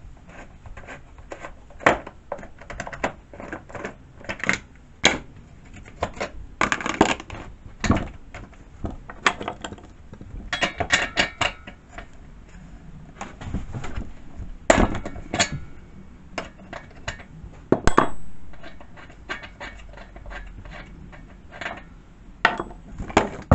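Irregular metallic clicks and clinks of hand tools on a Pinkway chainsaw as its spark plug is taken out, some in quick clusters and a few ringing briefly.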